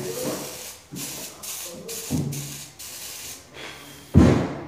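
A man blowing a series of short puffs of breath, then a stronger one about four seconds in, to clear flux smoke from a freshly soldered copper pipe joint.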